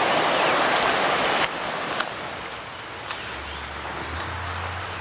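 Creekside ambience: a steady, high-pitched insect trill over a soft hiss, which is louder for the first second and a half, with a few faint ticks.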